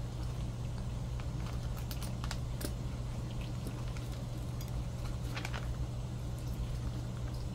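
A staple remover prying staples out of a paper journal page: a few light clicks and paper handling, clustered around two seconds in and again about five and a half seconds in, over a steady low hum.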